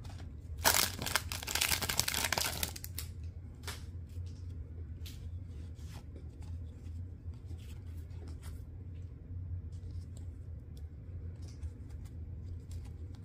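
A foil hockey-card pack wrapper being torn open, a crinkly tearing that lasts about two seconds near the start. Then come faint scattered ticks and rustles as the cards are handled, over a low steady hum.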